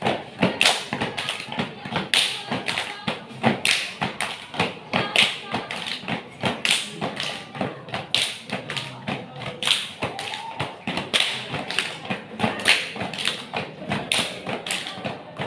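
A group of step dancers stamping their feet and clapping and slapping their hands and bodies in fast unison patterns: sharp percussive strokes, several a second.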